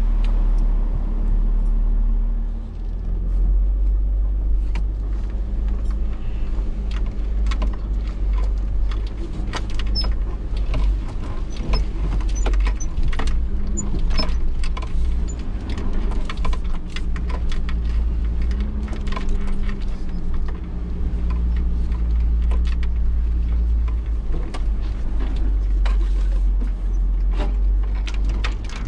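Mercedes G-Class driving slowly over rough woodland ground: a deep steady engine rumble at low revs that rises briefly a few times, with many sharp clicks, cracks and rattles from the body and from twigs and branches.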